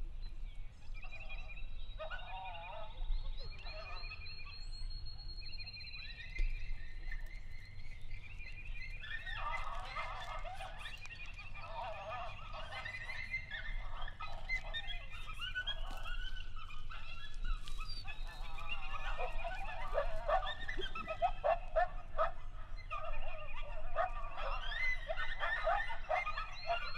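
Animal calls. Short high trills repeat throughout, and from about nine seconds in a long run of wavering, pitch-bending yipping calls joins them.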